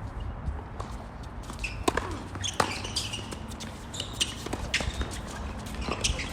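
Tennis ball impacts on an outdoor court: a string of irregular sharp knocks from racket strikes and ball bounces, the loudest two coming about two and a half seconds in. Underneath is a steady low rumble of wind on the microphone.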